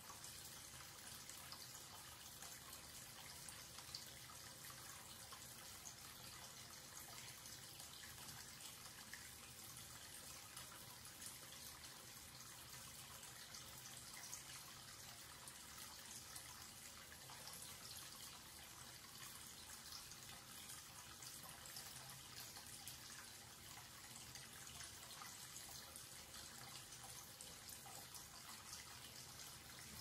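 Thin stream of water from a wall-mounted tap running into a ceramic wash basin: a faint, steady splashing, with tiny drip-like flecks in it.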